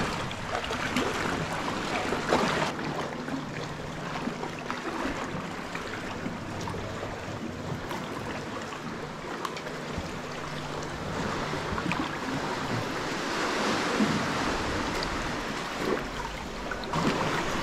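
Calm sea water lapping and gurgling against the rock and a sea kayak's hull, with small splashes, swelling a little in the second half.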